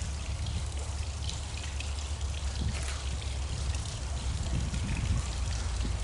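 Wind buffeting the camera microphone: a low, fluttering rumble with faint scattered ticks.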